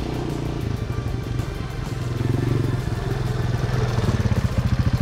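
Yamaha Moto-4 200 ATV's 196cc air-cooled four-stroke single-cylinder engine running as the quad rides up the dirt trail, swelling briefly about halfway through. In the last second it settles into a slow, even chug of about ten beats a second as the machine slows.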